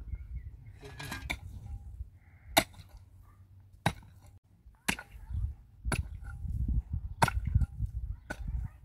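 A series of sharp strikes, one roughly every second, beginning about two and a half seconds in, over a steady low rumble.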